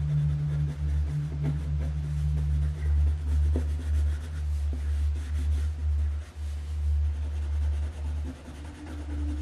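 Background music with a low, steady bass drone that swells and dips. Faint scratching of a felt-tip marker colouring on paper sits underneath.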